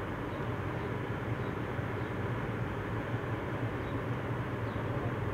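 Steady low hum over an even background noise, with no distinct events.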